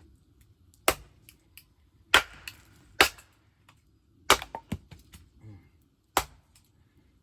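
Axe chopping wood: five hard, sharp cracks a second or more apart, some followed by smaller knocks.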